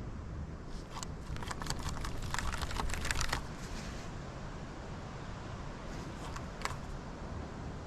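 Rapid light clicking from a baitcasting reel being cranked in, thickest in the first three seconds, with one more single click near the end.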